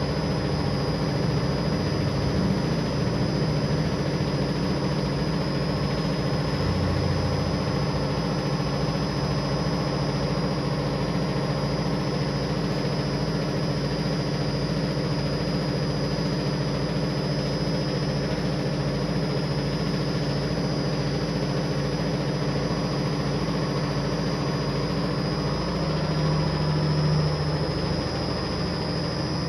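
A machine running steadily: an even mechanical hum with a faint high steady whine above it.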